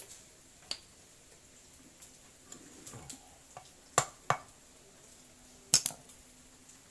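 Sharp metallic knocks and clinks of a hand tool and metal parts against a small four-stroke generator engine's block as it is pressed together: a light click about a second in, two loud knocks a third of a second apart around the middle, and a close pair near the end.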